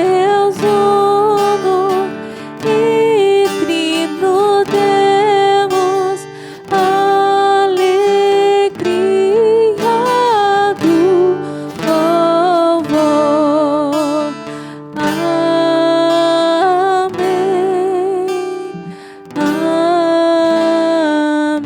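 Slow devotional hymn: a singer holds long notes with vibrato over a strummed acoustic guitar, with brief pauses between phrases.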